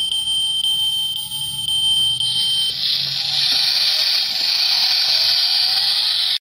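Electronic sound from a die-cast model Mercedes-Maybach's built-in light-and-sound module, playing through its small speaker: a steady high tone with light ticks about twice a second, turning into a hissing rush after about three seconds. It cuts off suddenly at the end.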